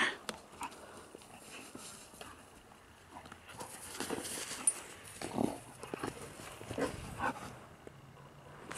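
Airedale terrier playing in snow, making several short, separate dog sounds as it bounds and noses into the snow, mostly in the second half.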